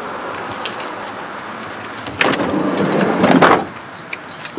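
Sliding side door of a Suzuki Every mini van rolling along its track for about a second and banging shut, starting about two seconds in.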